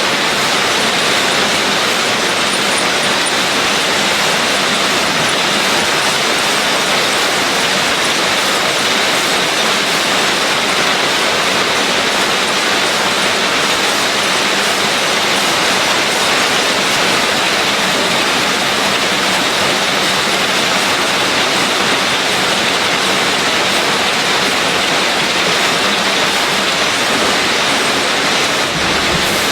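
Filter-production machinery running with a steady, loud, hiss-like noise and a faint high whine, with no breaks or distinct strokes.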